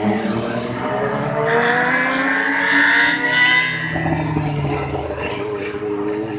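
Tour bus engine accelerating, its note rising steadily over the first three seconds and then levelling off.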